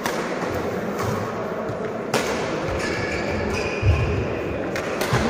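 Badminton rally in a large indoor sports hall: rackets strike the shuttlecock with sharp hits about every two seconds, three in all. A heavy footfall thuds on the court near the middle.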